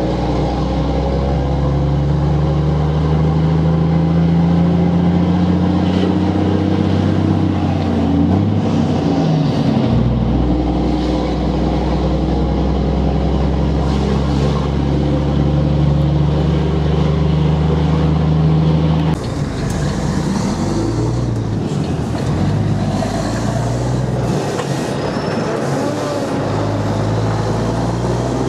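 Volvo FH12 truck's six-cylinder diesel engine running loud through an open exhaust pipe, a steady drone that shifts in pitch a little under a third of the way through and changes abruptly about two-thirds through.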